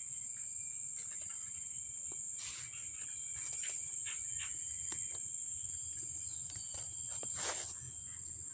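Crickets chirring in a steady high-pitched drone, with a couple of brief rustles and a faint bird chirp near the end.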